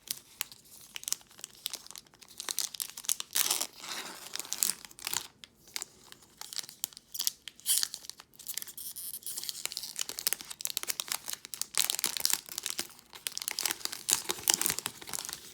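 A Pokémon TCG booster pack's foil wrapper being torn open and crinkled, with irregular crackling and rustling as the pack is worked open and the cards are pulled out.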